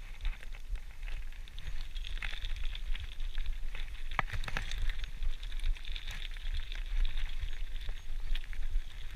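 GT Outpost Trail mountain bike's tyres rolling over a gravel forest track: a steady crackling crunch of small stones with many short clicks and one louder click about four seconds in, over a low rumble.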